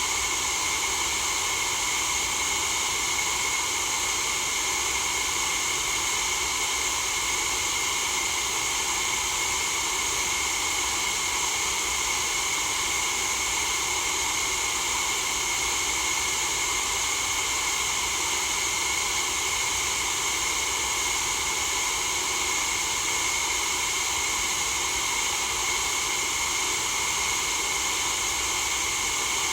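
Steady white-noise hiss for sleep, unchanging and even in level, brightest in the high end.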